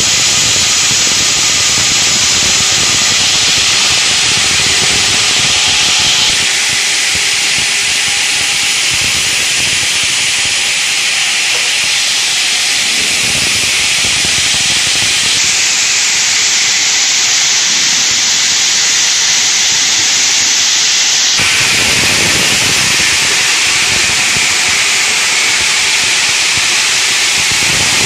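Multi-blade granite block cutting machine sawing stone under water spray: a loud, steady hiss of the diamond blades grinding through granite and the cooling water. The hiss shifts abruptly in tone about six, fifteen and twenty-one seconds in.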